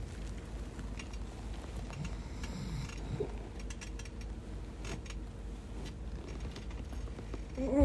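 A sleeping woman's bedroom heard overnight: faint clicks and rustles over a steady low hum, then near the end a short, louder vocal sound from the sleeper.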